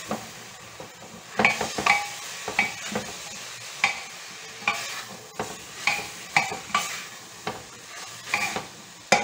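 Onions frying with a steady sizzle in a pressure cooker while a spoon stirs and scrapes the bottom of the pot in short strokes, a little more than one a second. The scraping is lifting the browned crust off the bottom after a splash of vinegar was added to deglaze.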